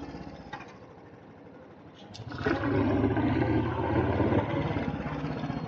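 Royal Enfield Bullet's single-cylinder engine running as the motorcycle rides along. It is quieter at first and gets much louder about two seconds in, then runs steadily.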